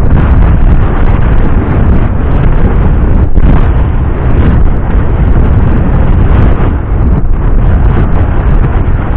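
Wind buffeting the camera's microphone: a loud, continuous low rumble.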